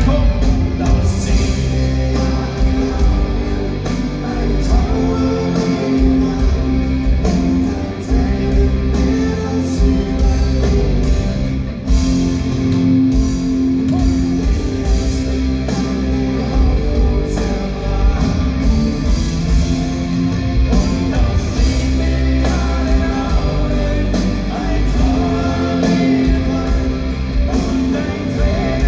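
Live rock band playing through a big PA, with guitars over bass and drums, heard from the audience in a large hall.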